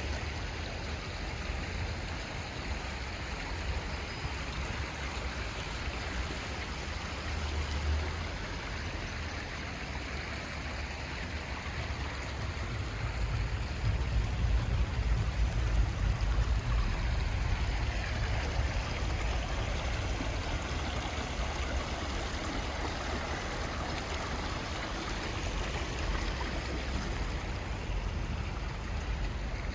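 Steady rain falling on wet city pavement, with water running and dripping. A low rumble swells about halfway through.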